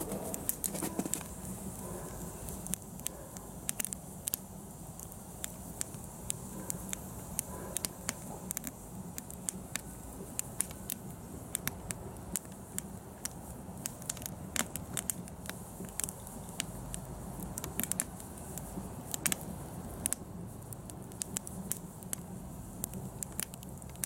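Wood fire crackling, with irregular sharp pops and snaps over a steady low background.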